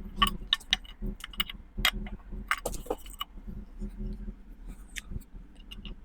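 Irregular light clicks and clinks of small hard objects being handled, with a low steady hum underneath.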